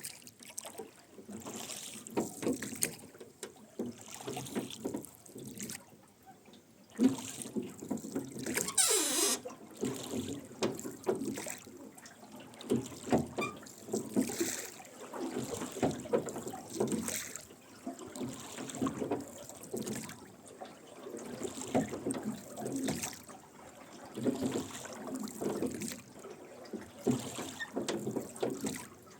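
Wooden rowboat being rowed: oar blades splashing and water trickling off them stroke after stroke, with the oarlocks creaking. A louder splash comes about nine seconds in.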